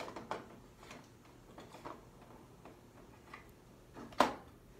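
Scattered light clicks and ticks from handling parts inside an open HP Designjet plotter, with one sharper click a little past four seconds in.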